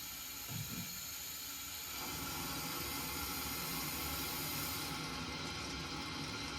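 Air hissing steadily out of the automatic air vent on a hydronic boiler's air separator as the feeder fills the system. The freshly replaced vent head is now releasing trapped air. The hiss grows a little fuller about two seconds in, and its sharpest top fades about five seconds in.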